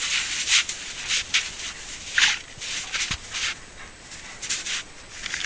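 A black Labrador retriever rolling and rubbing itself in snow: an irregular run of crunching, scraping swishes.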